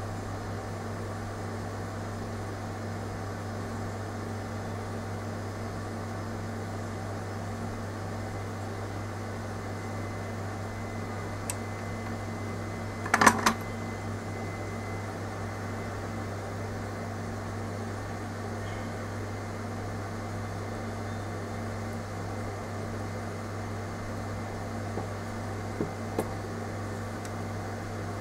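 Steady low machine hum with a fan-like rush, broken about halfway by a quick cluster of sharp clicks, with a few faint taps near the end.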